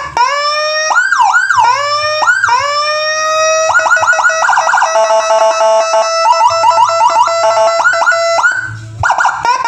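Electronic Whelen Gamma siren module cycling through its tones. It opens with a rising wail, breaks into quick up-and-down yelps, and rises again. About four seconds in it switches to a rapid warbling pulse that runs on, with a brief dip near the end.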